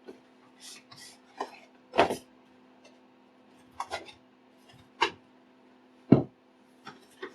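Cardboard retail box being opened and handled: scattered rubs, scrapes and light taps of card, with a sharper knock about six seconds in, over a faint steady hum.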